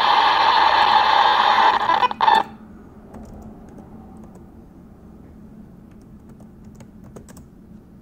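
Raw computer RAM contents played through aplay as sound: a loud, steady hiss of data noise that cuts off suddenly about two and a half seconds in as the playback ends. Afterwards a few faint computer-keyboard clicks, several of them close together near the end.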